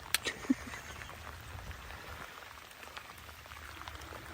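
Faint steady patter of water, with many small scattered ticks and a sharp click just after the start.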